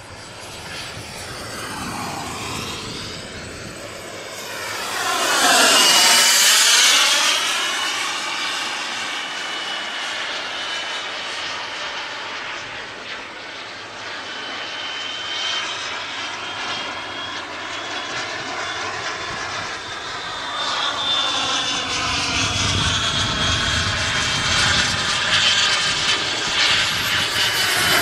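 Model A-4 Skyhawk jet flying past overhead with a high-pitched engine whine. It swells to a loud pass about six seconds in, its pitch dropping as it goes by, then grows louder again toward the end as it comes back around.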